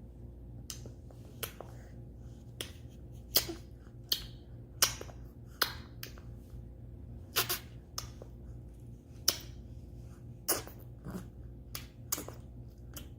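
A baby making a string of sharp popping clicks with his mouth, irregularly spaced at about one a second, his playful 'bubbling' sound.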